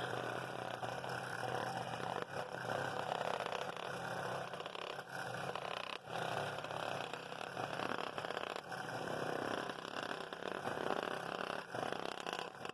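Scroll saw running, its fine blade cutting an inside circle through a glued-up walnut-and-aspen plywood accent ring with the table set for a straight 90-degree cut. The cutting sound is steady, with brief dips about six seconds in and again near the end.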